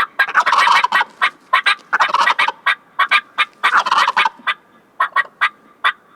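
Wild turkeys gobbling repeatedly: three longer gobbles about a second and a half apart, mixed with many short, clipped calls.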